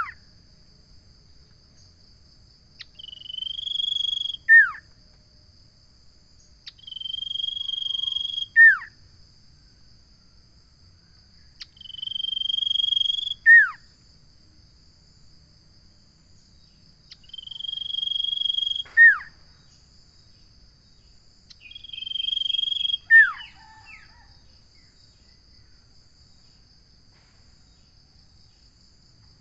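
Common iora (cipoh) singing: five long whistles, each ending in a sharp falling note that is its loudest part, repeated about every four to five seconds. The calls stop about 24 seconds in. A steady high insect drone runs underneath.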